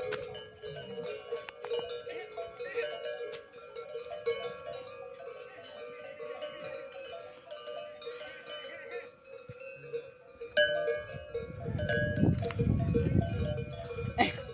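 Bells hung on camels' necks clanking and ringing continually, many overlapping strikes, as the herd moves about. A low rumble joins them near the end.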